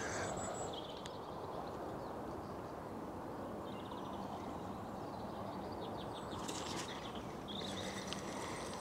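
Small birds chirping at intervals over a steady low rushing outdoor background.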